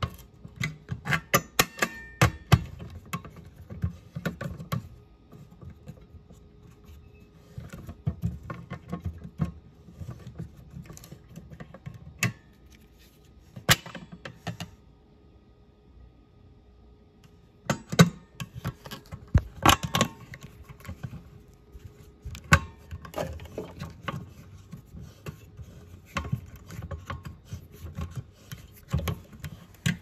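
Hands and a screwdriver working a Siemens manual fire alarm pull station to reset it: irregular plastic and metal clicks, taps and clatter as the front cover is pried and pulled off. The clicks come in clusters, with a pause of a few seconds about halfway through.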